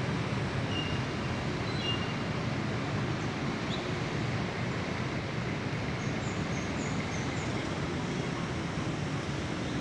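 Steady low rumble of distant vehicles, with a few faint high chirps about midway.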